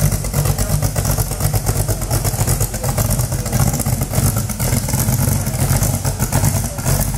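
Ford GT40's V8 engine idling steadily, a fast, even pulse.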